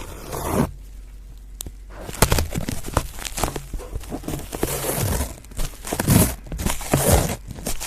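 Adhesive tape being peeled off a foam microphone cover right on the mic, in irregular bursts of crackly ripping and scratching noise. After a short lull at the start, it picks up about two seconds in.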